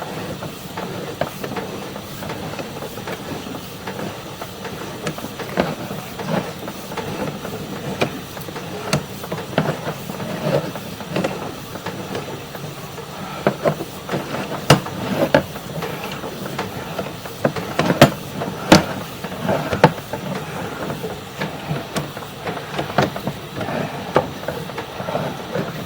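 Sewer inspection camera's push cable being handled and fed back on its reel: irregular clicks, knocks and clatters over a steady hiss, with a few louder knocks in the second half.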